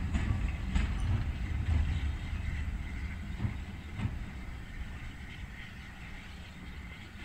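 Steam-hauled train pulling away, its low rumble fading steadily as it draws off into the distance, with a few sharp clicks from the wheels on the track in the first few seconds.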